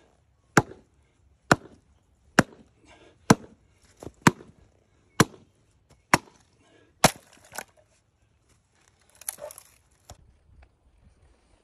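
Fiskars Mini Maul chopping into a wooden log round: a steady run of sharp strikes, about one a second. About nine seconds in, the round splits apart with a short crackle, followed by a knock.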